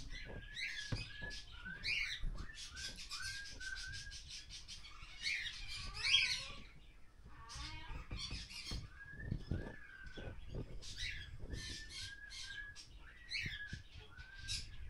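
Birds chirping over and over, short calls mixed with quick trilled ones.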